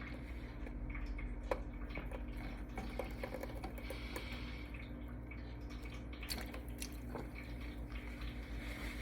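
Beer being chugged straight from a can, shotgun-style: faint liquid draining and dripping with small scattered ticks over a steady low hum.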